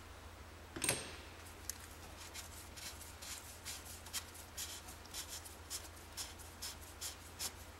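Ratchet wrench with a 32 mm socket loosening the oil filter housing cover on a 2.0 TDI diesel engine: a sharp knock about a second in, then light, even ratchet clicks at about three a second.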